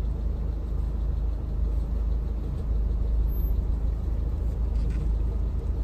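Steady low rumble of a car heard from inside the cabin: engine and road noise while driving.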